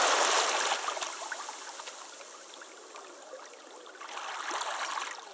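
Running water like a flowing stream, a soft steady rush. It fades down over the first couple of seconds and swells briefly again near the end.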